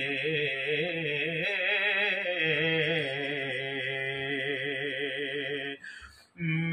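A man singing a long, drawn-out, wavering melismatic line of a Punjabi Sufi kalam over a steady held drone tone. The line breaks off with a short pause near the end.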